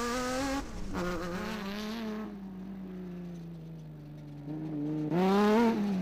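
Off-road racing buggy's engine running, its note sagging and fading through the middle, then revving up and getting louder about five seconds in.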